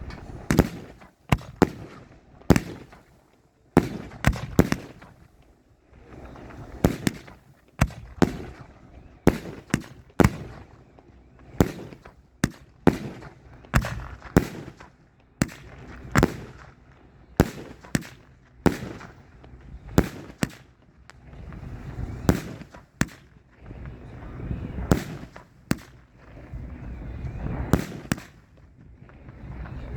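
Fireworks display going off: sharp bangs at irregular intervals, about one or two a second and sometimes in quick pairs, each followed by an echoing rumble.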